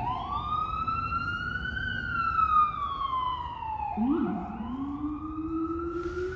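Emergency vehicle siren wailing, its pitch rising and falling slowly, with a second, lower siren joining about four seconds in.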